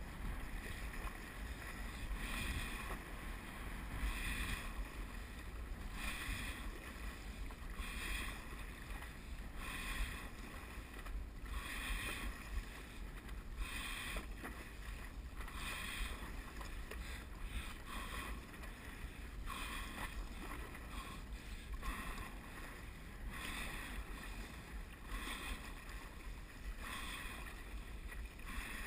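Stand-up paddleboard being paddled: the paddle blade splashes in the water with each stroke, about every two seconds, over a steady low rumble of wind on the microphone.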